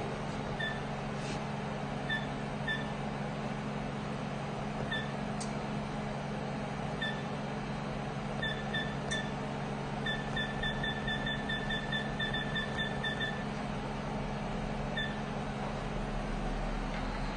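Touchscreen key beeps from an 808 nm diode laser hair-removal machine as its settings are tapped: short high beeps, single or paired, with a quick run of about four to five a second for some three seconds midway as a value is stepped up. A steady low hum runs underneath.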